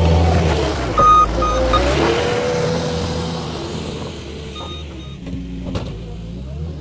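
Cat 289D compact track loader's diesel engine running as the machine passes close by and drives away, loudest at first and fading. A few short beeps about a second in, and a single sharp knock near the end.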